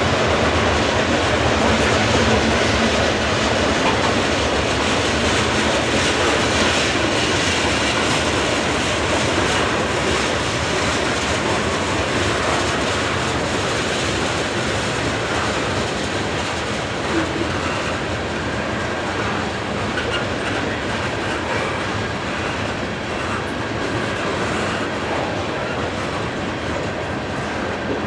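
Norfolk Southern train 13V's freight cars rolling past, with steady wheel-and-rail noise and clacking over the rail joints, slowly getting a little quieter.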